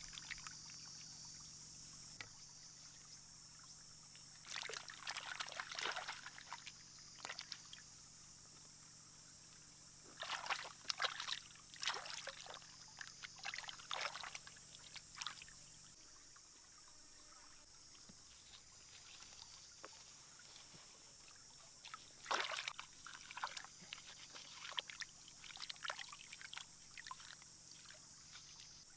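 Stream water splashing and sloshing around hands as food is rinsed in it. The splashing comes in short, irregular spells over a steady high hiss.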